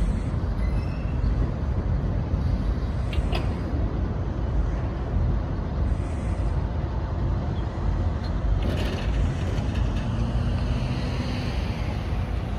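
Steady low rumble of road traffic, with a brief hiss about nine seconds in.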